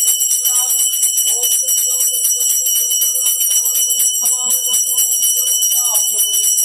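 A puja hand bell rung rapidly and without pause, its high ringing tones sustained by a dense run of clapper strikes, with a man's voice chanting faintly underneath.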